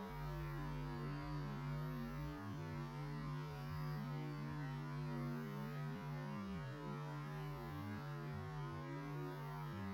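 Ambient sound slowed to roughly a sixth of its speed, heard as a steady low hum with wavering tones above it.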